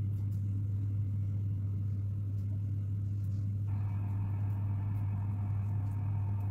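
A steady low hum at one pitch throughout. About three and a half seconds in, a fainter, higher steady hiss joins it.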